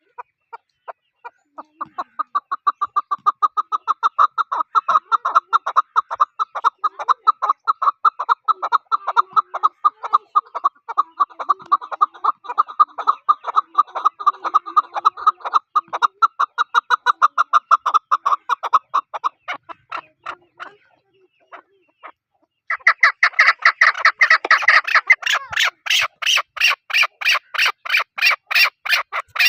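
A bird calling in a long, fast run of short repeated notes, about six a second, which stops about twenty seconds in. After a short pause a louder, higher-pitched run of notes starts.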